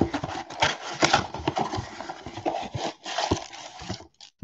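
Cardboard mega box being opened and its foil-wrapped card packs pulled out: irregular crackling, scraping and rustling of cardboard and wrappers that stops about four seconds in, then one last click.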